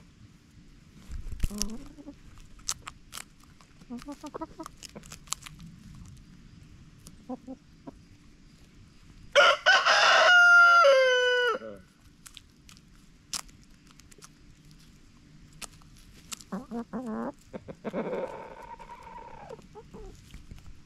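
Backyard hens clucking softly while they peck at food scraps, with many sharp clicks of beaks striking the ground. About nine seconds in a rooster crows once, loud, for about two and a half seconds, its pitch stepping down; near the end a hen gives a longer drawn-out call.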